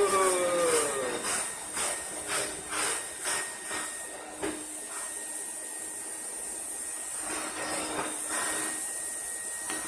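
Roboclean vacuum cleaner running during carpet spot-cleaning: a steady motor hiss and hum, swelling and fading about twice a second in the first half as it works the spot, then running evenly.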